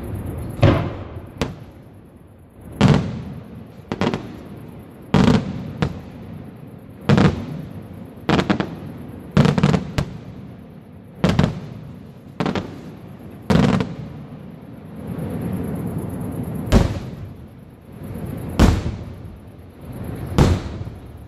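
Aerial firework shells bursting in quick succession, about sixteen sharp bangs spaced a second or two apart, each followed by a rolling echo.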